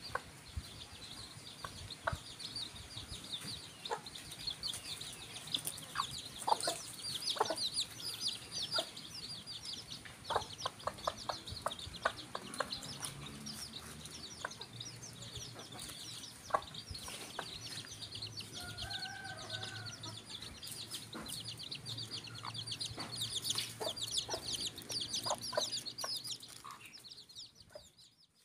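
Village hen and chicks foraging: a constant stream of rapid, high chick peeps over the hen's low clucking, with scattered small ticks of scratching and pecking in dry leaf litter.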